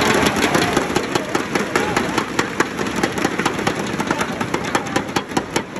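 Arena crowd banging inflatable thundersticks together in a fast, steady rhythm of several sharp claps a second over cheering. The clapping stops near the end.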